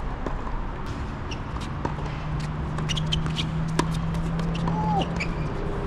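Tennis shoes shuffling and scuffing on a hard court, with scattered light clicks, over a low steady hum that sets in about two seconds in and stops near the end.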